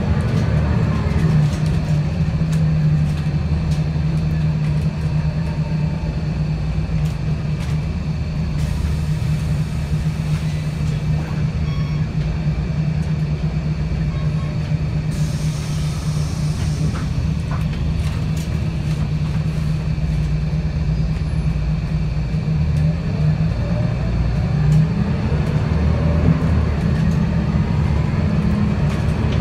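Scania L94UB CNG bus heard from inside the saloon: a steady low engine drone, with whining pitch sweeps from the ZF 5HP502 five-speed automatic near the start and again in the last several seconds as the bus changes speed. This is a gearbox the uploader calls slipping. A brief hiss comes about halfway through.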